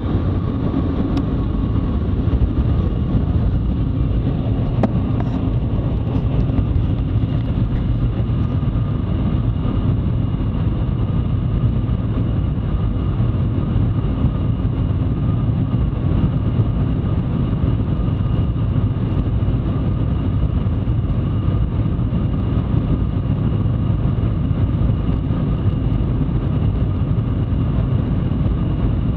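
Steady loud rumble inside the cabin of the Shanghai Maglev train cruising at its top speed of about 431 km/h, with a faint steady whine over it.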